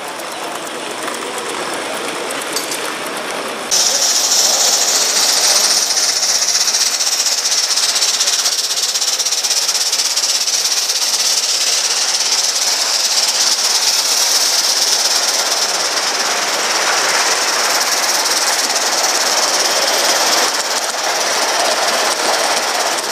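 Live-steam gauge one model locomotives running, giving a loud, steady hiss of steam that starts abruptly about four seconds in, after a quieter stretch of a small model steam traction engine running.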